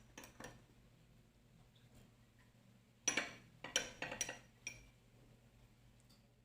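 A spoon clinking against a bowl as cut strawberries are added over ice cream: a couple of light clinks at the start, then a quick run of about five ringing clinks about three seconds in.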